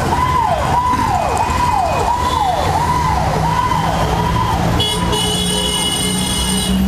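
Electronic siren wailing in quick, repeated downward sweeps, about two a second, over the low hum of a running vehicle engine. A high, steady electronic tone joins near the end.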